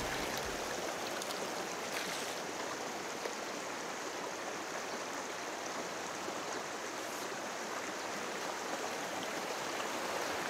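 River water flowing steadily over a stony bed: an even, continuous rushing of current.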